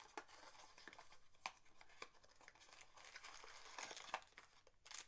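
Faint crinkling, tearing and small clicks of packaging as a mystery pin box and its blind bags are opened by hand.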